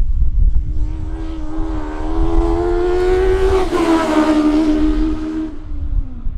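Racing car passing at speed: the engine note grows louder and climbs slightly as the car approaches. It is loudest about four seconds in, where the pitch drops as the car goes by, then fades away.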